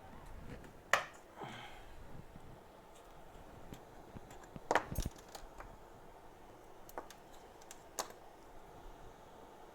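Scattered sharp clicks and taps of small metal tools being handled and set down on a repair bench, the loudest about a second in, a double click near five seconds, and lighter ones near seven and eight seconds.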